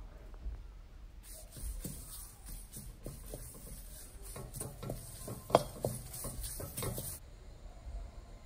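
Wooden spatula stirring curry leaves as they dry-roast in a kadai: a string of light scrapes and knocks against the pan, the loudest about five and a half seconds in, over a faint high hiss that stops about seven seconds in.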